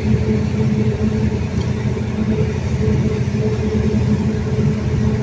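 Perkins 1300 series diesel engine running at a steady speed, with a dense, even rumble of firing pulses.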